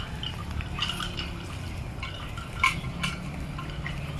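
Small bells on the necks of Bali cattle ringing in a scatter of irregular light clinks, one a little louder partway through.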